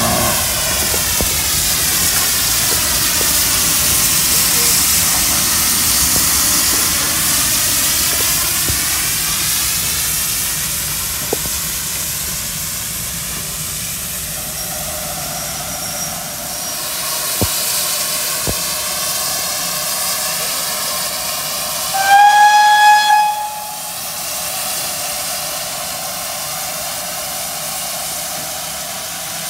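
GWR Saint-class steam locomotive 'Lady of Legend' hissing steam steadily, louder at first and easing off. About three-quarters of the way through, its whistle gives one short blast of about a second and a half, the loudest sound.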